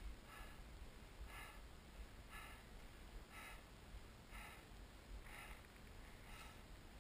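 Faint, muffled swishing of skis turning on packed snow, about once a second, over a low rumble of motion through the camera housing.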